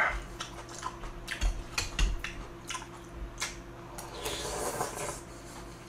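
Slurping and chewing of jjamppong noodles, with short clicks of chopsticks and spoon against the bowl. A longer slurp comes about four seconds in.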